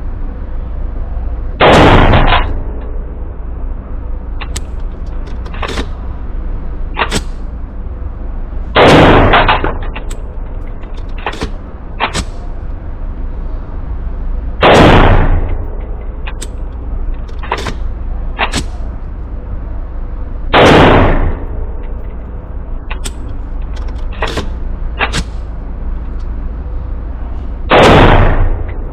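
AR pistol with a Franklin Armory binary trigger fired in an indoor range: five loud, short strings of rapid shots about six seconds apart, each with echo in the concrete lane. Fainter sharp reports sound between them.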